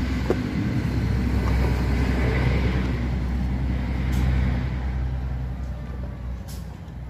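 Low, steady engine rumble of a motor vehicle that fades away over the last couple of seconds, with a few faint clicks.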